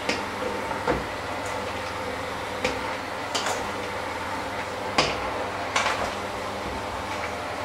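Electric hand mixer running steadily in a stainless steel bowl, its beaters knocking sharply against the metal several times.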